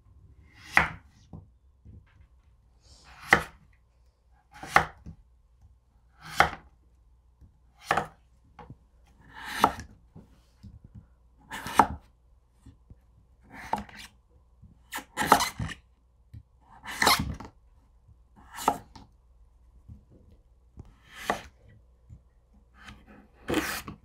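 Victorinox 8-inch chef's knife slicing through raw butternut squash and meeting a wooden cutting board. About thirteen slow cuts, one every second or two, each a short crunch ending in a knock on the board.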